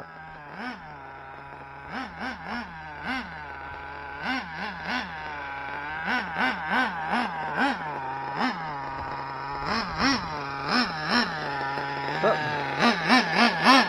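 Nitro RC truck's glow-fuel engine (a Dynamite .26 with a tuned pipe, in a Kyosho Inferno ST) running, blipped again and again in quick short revs that rise and fall back to a steady idle pitch. The engine grows gradually louder toward the end.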